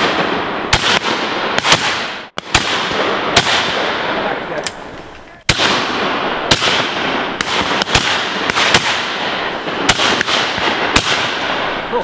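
Shotguns firing repeatedly at driven pheasants, about fifteen shots from several guns, sometimes more than one a second, with their echoes filling the gaps between them. The sound breaks off abruptly twice.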